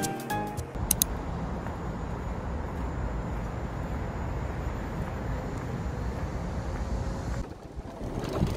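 Steady wordless background noise, an even rumbling hiss with no distinct events, of the kind heard as street or traffic ambience; it cuts off abruptly about seven seconds in.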